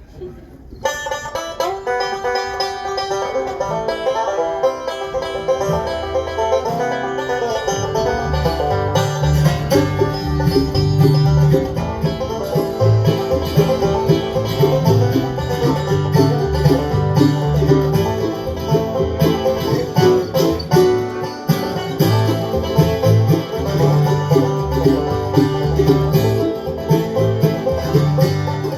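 Live bluegrass band playing an instrumental opening, banjo picking over guitar, with a bass line coming in about six seconds in.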